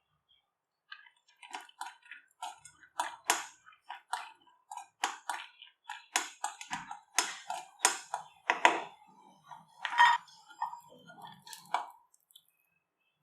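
A metal spoon clinking and scraping against a metal vessel, with a run of short ringing knocks a few times a second that starts about a second in and stops near the end.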